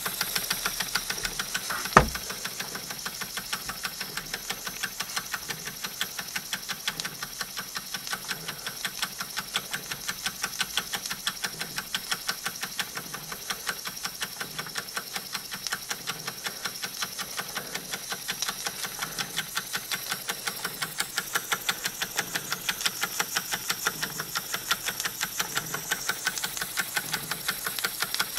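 Wilesco toy steam engine running, its cylinder giving a fast, even ticking beat over a hiss of steam. A single sharp click about two seconds in.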